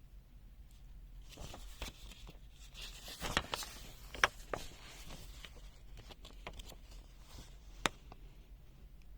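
Handling noises: rustling with a run of small clicks and knocks, the sharpest about four seconds in and one more near the end.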